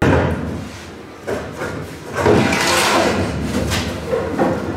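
A hollow honeycomb-core IKEA tabletop being pushed in from the side onto the steel frame of a workbench. It knocks against the frame at the start, then scrapes and bumps for a couple of seconds as it slides into place.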